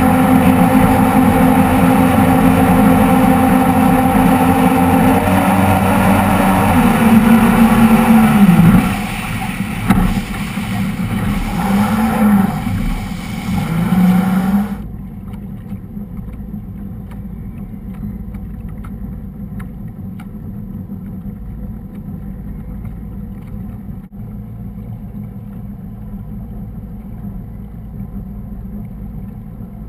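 Motorboat engine running at speed with water rushing along the hull. About nine seconds in the engine pitch falls as it is throttled back and rises and falls a couple of times; at about fifteen seconds the rush of water suddenly drops away, leaving the engine idling low.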